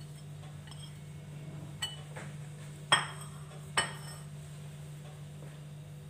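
Small glass bowl clinking lightly against another dish three times as spices are tipped out of it, the loudest clink about halfway through.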